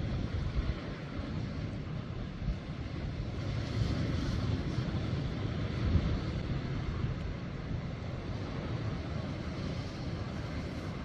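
Wind buffeting the microphone at the seashore: a steady, uneven low rumble with a thin hiss above it.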